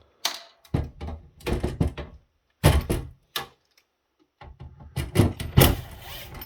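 Knocks and clatter of parts being handled during the disassembly of an electronics unit, in four or five bunches of quick impacts with short pauses between them.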